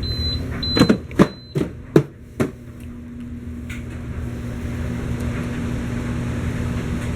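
About five sharp knocks within the first two and a half seconds, then a dehumidifier running with a steady hum and a low steady tone that comes in partway through.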